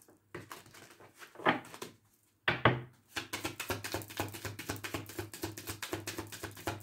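Tarot cards being handled, with a couple of sharp slaps of cards in the first half, then shuffled in a rapid, steady patter of several card clicks a second from about three seconds in.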